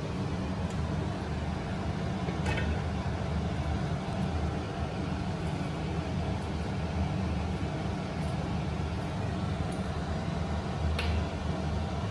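Steady low rumble of broth simmering in a stainless steel wok on a cooktop. A few light metal clinks come about two and a half seconds in and again near the end.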